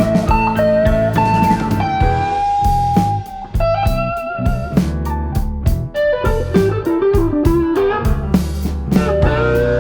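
Instrumental background music led by an electric guitar melody with bending, sustained notes over a steady bass and drum beat, in a relaxed blues style.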